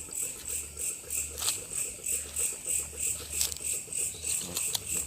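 Insects chirping in a steady, evenly pulsing high-pitched rhythm, about three pulses a second.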